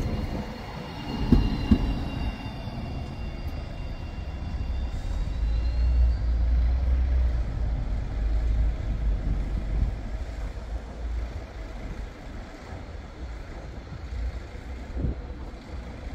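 Electric trams running on street track: a high electric whine with a gliding tone over the first few seconds, a few knocks early on, then a low rumble that swells and fades in the middle.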